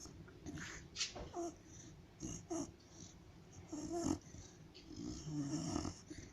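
A sleeping dog talking in its sleep: a string of short, muffled grunting whimpers with wavering pitch, mixed with snoring breaths, the longest near the end.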